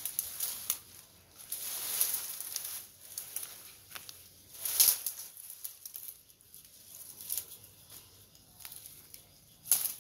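A machete hacking through brush, with leafy branches rustling and crackling as they are cut and pulled. Sharp chops land about five seconds in and again near the end.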